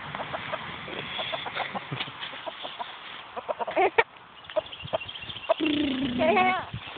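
Backyard chickens clucking, with short scattered calls and a few louder drawn-out calls about four seconds in and near the end.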